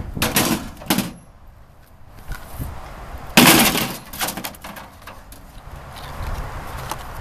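Microwave oven's metal casing and parts clanking and knocking as they are put back together, with one loud bang about three and a half seconds in.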